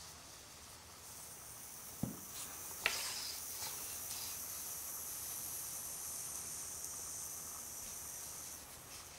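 Steady high hiss of air through a floor pump's hose at the motorcycle's tire valve, with a thump about two seconds in and a sharp click just after. The hiss stops shortly before the end.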